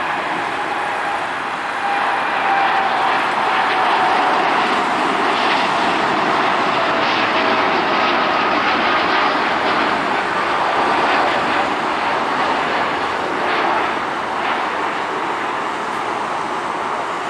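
A Boeing 787-10 Dreamliner's twin jet engines at takeoff thrust as it lifts off and climbs away: a loud, steady rushing noise with a whine that slowly falls in pitch in the first several seconds.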